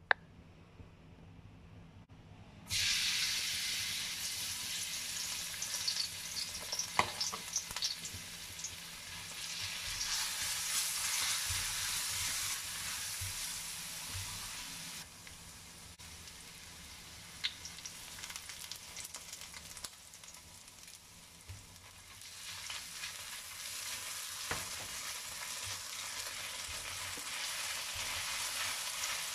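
Minced garlic hitting hot oil in a wok and sizzling, starting suddenly about three seconds in. It fries on while a spatula stirs it, with occasional light ticks and scrapes. The sizzle eases off midway and picks up again near the end.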